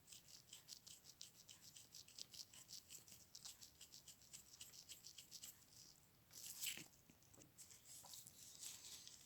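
Faint, quick rubbing strokes, several a second, of a wipe on the greasy inner lens element of a Fujifilm FinePix HS20EXR camera being cleaned, with a longer, louder stroke about two thirds of the way in.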